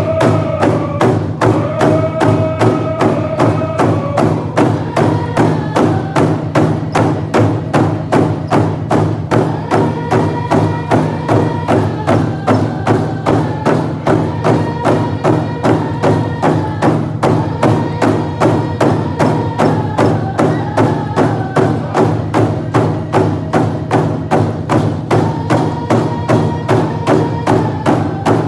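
Coast Salish hand drums struck together in a steady, even beat while a group sings a traditional song over them.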